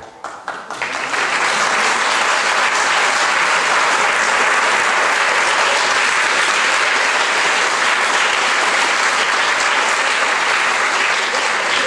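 An audience applauding: dense, steady clapping that builds over the first second or so and then holds.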